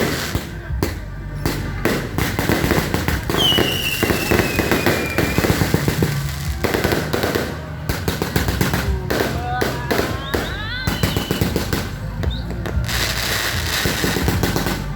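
Fireworks and firecrackers going off in rapid, crackling pops, with a whistle falling in pitch about four seconds in.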